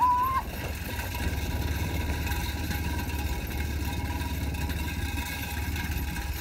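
Steady engine running and wind-rushing noise from the vehicle following close behind a racing bullock cart, with a short, high held shout right at the start.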